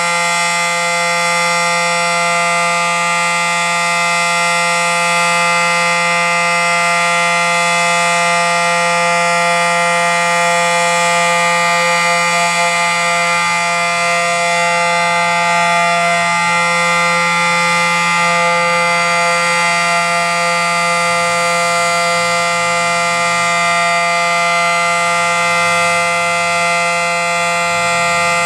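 Federal Signal SD-10 civil defense siren sounding its steady alert tone: one constant pitch with many overtones, held without a break.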